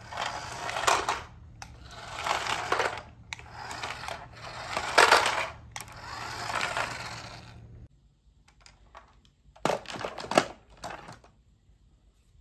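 A plastic toy tanker truck rolls over a tile floor, its wheels and body rattling and scraping in several swells over a steady low hum. The hum stops abruptly about eight seconds in. Near the end come a couple of short clatters of plastic toys.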